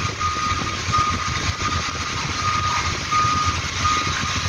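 Vehicle backup alarm beeping at one steady pitch, about two beeps a second, over a low rumble of engines and machinery.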